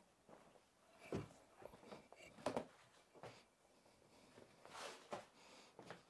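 Near silence in a small room, broken by a few faint knocks and rustles of a person moving about: about a second in, around two and a half seconds, and again near five seconds.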